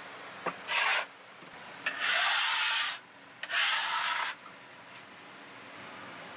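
Knife scraping across a plastic cutting board: three rasping strokes, each opening with a sharp click, the middle one the longest.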